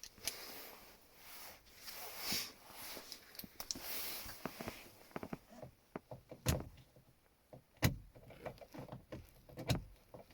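Small tools and parts being handled: scattered light clicks, rattles and rustles, with two sharp knocks about six and a half and eight seconds in.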